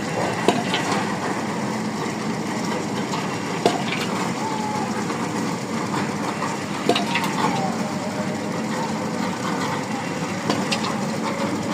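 Engine of a micro-piling rig running steadily, with a sharp knock every few seconds.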